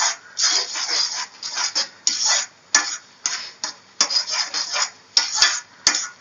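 Slotted metal spatula scraping and knocking around a metal kadhai while stirring thick semolina halwa, in quick repeated strokes about two to three a second.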